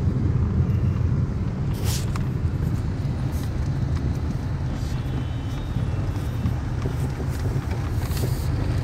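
Steady low rumble of a moving car heard from inside the cabin: engine and road noise, with a couple of brief clicks.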